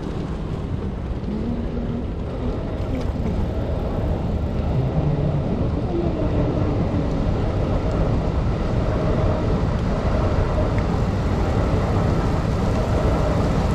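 Steady low rumbling wind noise on a bicycle-mounted camera's microphone while riding, getting a little louder a few seconds in.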